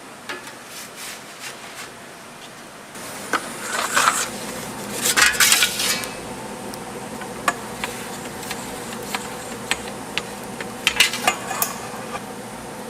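Kitchen work sounds: scattered clicks and knocks of utensils and dishes over a steady hiss, with a busier stretch of scraping and clatter about four to six seconds in. The background hiss grows louder about three seconds in.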